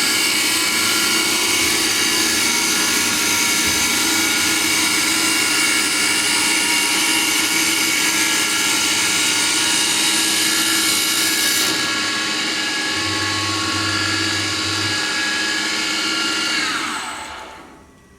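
Wood CNC lathe running with a steady motor whine and a high hiss. The hiss stops about two-thirds of the way through, and near the end the whine falls in pitch as the machine spins down to a stop.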